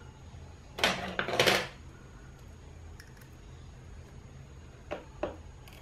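Small metal screws and parts of a camera lens being handled: a brief metallic rattle about a second in, then a few light clicks near the end.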